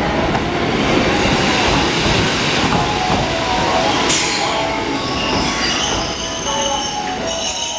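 Kotoden (Takamatsu-Kotohira Electric Railroad) electric commuter train rolling into the station, its wheels rumbling on the rails. About five seconds in, a high steady squeal of wheels and brakes sets in as it draws along the platform.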